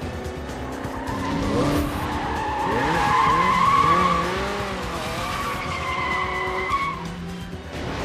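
Tyres of a BMW 750iL squealing as the car is driven hard and swerved. The wavering squeal starts about a second in, is loudest around three to four seconds, and fades out near the end.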